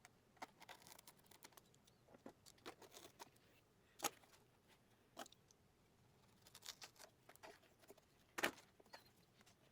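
Faint, scattered clicks and scratches of a blade cutting cross slits in an upholstered leather door panel, with two sharper clicks about four seconds in and near the end.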